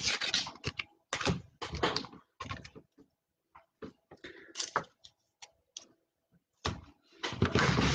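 Irregular clicks, taps and rustles of trading cards being handled and fitted into hard plastic card cases. Near the end a loud, continuous rubbing noise sets in as the camera itself is picked up and handled.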